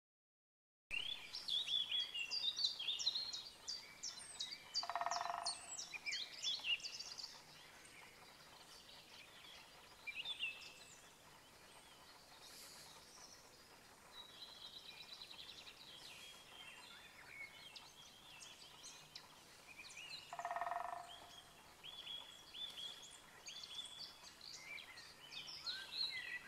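Several songbirds singing and calling in a meadow: a busy run of chirps and trills that sets in about a second in, then sparser song. A lower call sounds twice, about five seconds in and again about twenty seconds in.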